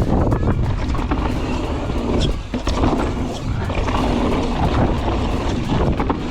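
Santa Cruz Megatower mountain bike ridden over a dirt trail: tyres rolling and the bike rattling, with a run of short clicks and knocks, under heavy wind buffeting on the microphone.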